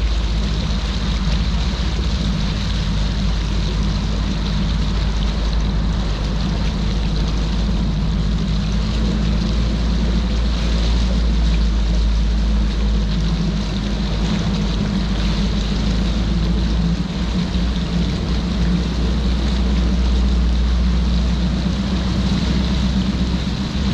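Bass boat's outboard motor running steadily at one speed, a low hum under a constant rush of water and air.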